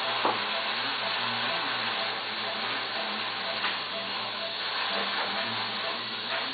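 Operating-room ambience: a steady hiss with faint short beeps repeating about twice a second, like a patient monitor, and a few light knocks, one just after the start, one near the middle and one near the end.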